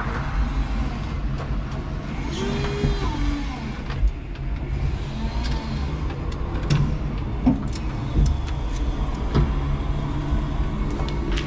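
A 5-ton electric forklift truck working from the cab: its electric drive and hydraulic pump motors whine up and down over a steady low rumble. Scattered sharp clicks and knocks come from the mast and cab.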